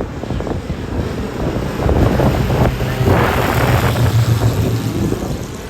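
Small propeller commuter plane coming in to land, a steady low drone that swells for a few seconds in the middle, with wind buffeting the microphone.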